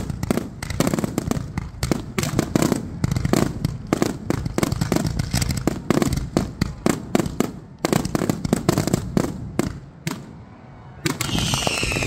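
Fireworks display: rapid volleys of bangs and crackling from bursting aerial shells, a brief lull about ten seconds in, then a long whistle falling in pitch near the end.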